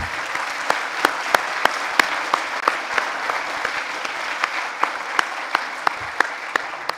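A congregation applauding: a dense patter of many hands clapping, with a few sharper single claps standing out, dying away near the end.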